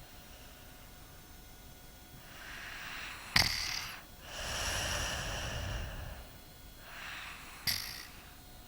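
Four-year-old child snoring in his sleep: a drawn-in breath that ends in a sharp snort, followed by a long out-breath, twice, about four seconds apart.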